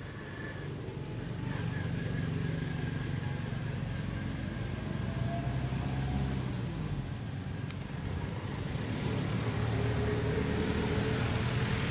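Motor vehicle engine running, a low hum whose pitch drifts slightly, growing louder about two seconds in and again near the end.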